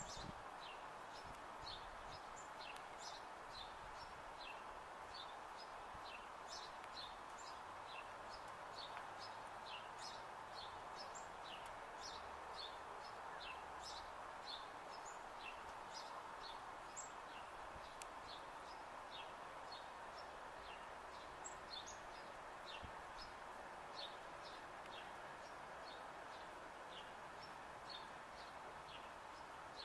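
Small birds chirping, many short high calls, several a second, over faint steady outdoor background noise.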